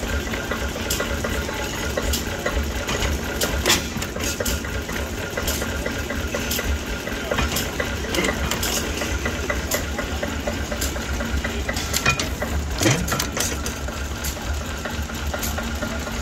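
Small vintage stationary engine running steadily: a continuous low beat with many sharp metallic clicks and knocks from its moving parts.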